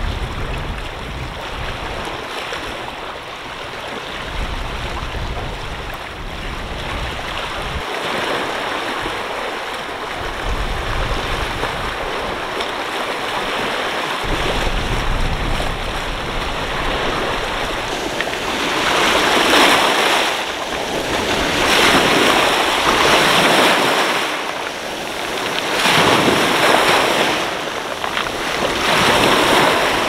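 Small waves breaking and washing over a pebble beach. For the first half the sea is a steady hiss with wind buffeting the microphone, then about two-thirds of the way in the surf rises into surges every three or four seconds as each wave runs up the stones.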